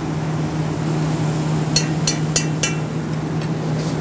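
Four quick metallic clinks, about a third of a second apart, of a utensil striking a steel sauté pan on a gas range, over a steady low mechanical hum.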